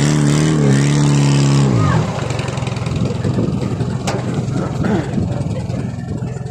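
A racing car's engine on the circuit, its note rising and holding, then dropping away and fading about two seconds in. After that, a mixed background of outdoor noise, with a single sharp click near the middle.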